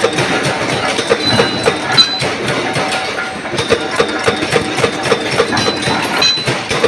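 Mechanical power press stamping washers out of black steel plate, a fast clatter of metal knocks running at about three to four strokes a second.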